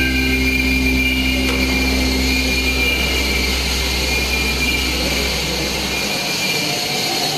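Electro-acoustic music: a dense, hissing drone with a steady high tone over a low hum. The low hum drops away about six seconds in.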